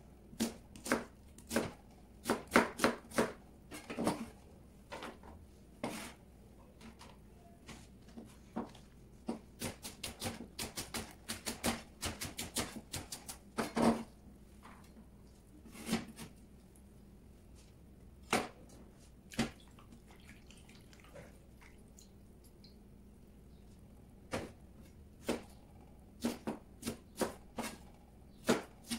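Chef's knife chopping on a plastic cutting board: sharp, irregular knocks of the blade on the board, with a quick run of rapid chops about a third of the way in and a pause of a few seconds after the middle.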